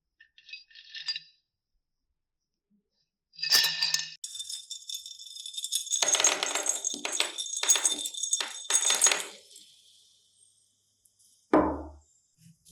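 Metal clinking and jingling: a sharp knock, then several seconds of bright rattling with a ringing tone and a few louder strokes that fade away, and a dull thump near the end.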